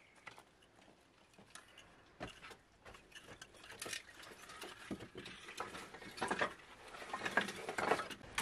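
Scattered knocks and clatters of split firewood being carried in and set down on a dirt floor, with shuffling, busier and louder in the second half.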